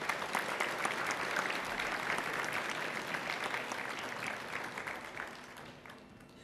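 A crowd of students applauding, a dense patter of many hands clapping that fades away about five to six seconds in.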